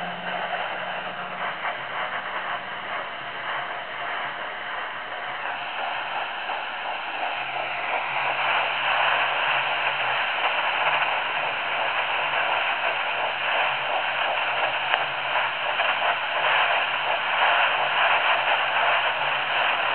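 Handheld fetal Doppler's speaker giving out a steady static hiss as the probe searches the lower abdomen, with the faint whooshing of a 9-week fetal heartbeat barely audible in it. The hiss grows louder about 8 seconds in.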